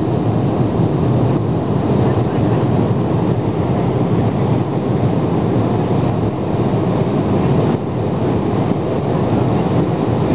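Embraer E170 cabin noise: a steady, dense roar of the jet's turbofan engines and rushing air heard from inside the cabin at the window seat.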